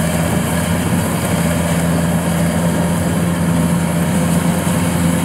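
Kubota DC-series rice combine harvester running steadily while cutting and threshing lodged rice: a constant engine and machinery drone with a steady low hum.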